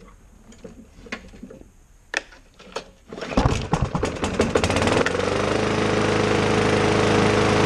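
4.5 hp Briggs & Stratton single-cylinder lawn mower engine, its cylinder primed with carburetor cleaner, pull-started. A few light clicks, then about three seconds in it catches with rapid sputtering firing and settles within two seconds into steady running.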